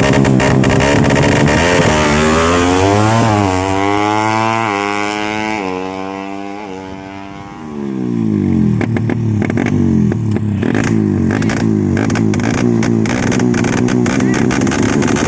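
Suzuki Satria FU motorcycle with an RMC racing exhaust, accelerating away through the gears: the pitch rises and drops back four times as the sound fades. A little under halfway through it is suddenly loud again with the pitch falling, then runs unevenly up close.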